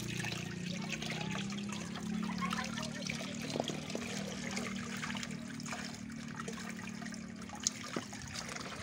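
Water trickling and splashing as ganyong (canna) tubers are rinsed of soil by hand, with small knocks and a steady low hum underneath.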